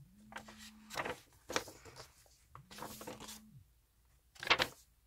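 A paperback book being opened and its pages turned by hand: several short papery swishes and rustles, the loudest near the end.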